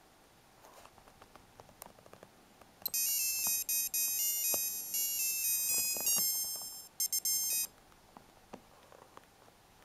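Kessel 7 Melodies Chrono digital watch playing a high-pitched, single-voice electronic melody from its buzzer. It starts about three seconds in and runs about five seconds, breaking up into a few short notes near the end. Faint clicks come before and after it.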